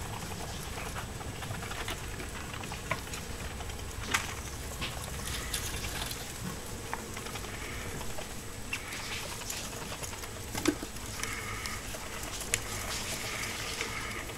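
Pet mice scurrying through wood-shaving bedding: light rustling with scattered small ticks and scratches, and a few sharper clicks.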